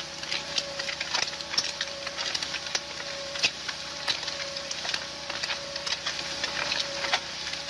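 A machine running with a steady whine, over irregular sharp cracks and crackles.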